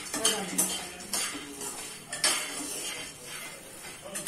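A metal spoon stirring peanuts as they dry-roast in a metal pan: irregular clinks and scrapes a few times a second.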